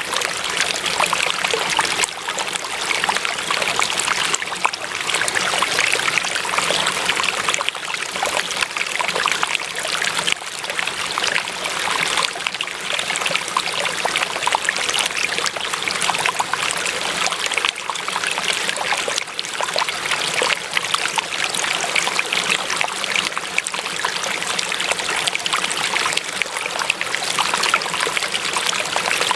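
Water running in a small stream, a steady trickling and babbling flow.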